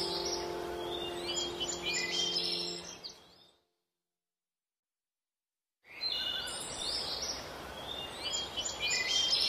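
Birds chirping over the fading end of sustained musical tones. The sound drops to dead silence for about two seconds midway, then the chirping resumes.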